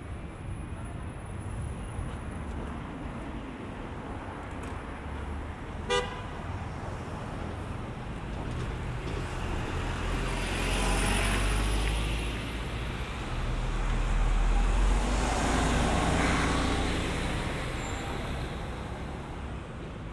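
City street traffic: engines and tyres going by, with one short car horn toot about six seconds in. In the second half, heavy vehicles, among them a red double-decker bus, pass close twice, the sound swelling and fading each time.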